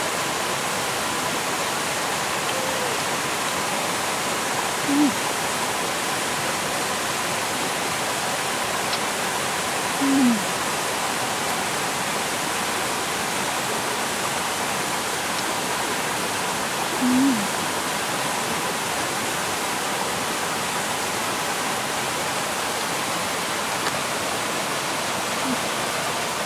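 Steady rush of river water running over rocks, with three or four brief, falling hummed voice sounds spread through it.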